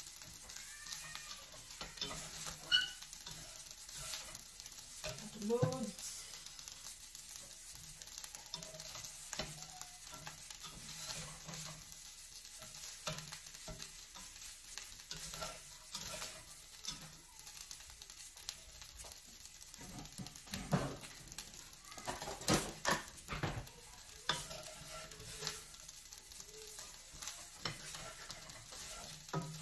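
Rice frying with a steady sizzle in a stainless steel pot while it is stirred and turned, the utensil scraping through the rice against the pot in short strokes. A few louder knocks of the utensil against the pot come about three-quarters of the way through.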